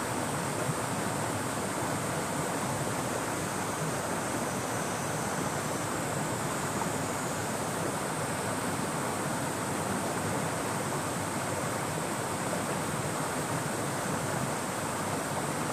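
The Hozu River flowing, a steady rushing of water with no break, and the steady high drone of cicadas above it.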